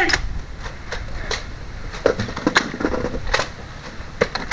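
Nerf blaster fire: scattered sharp clicks and pops, irregular and about a second apart, over wind rumbling on the microphone.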